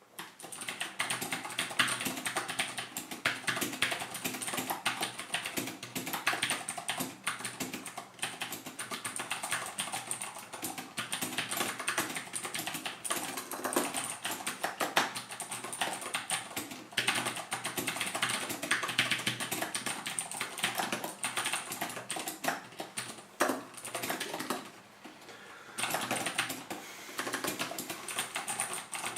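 Continuous fast typing on a Vortex Poker 3 mechanical keyboard with Cherry MX Blue switches: a dense stream of sharp, clicky keystrokes, pausing briefly about 25 seconds in.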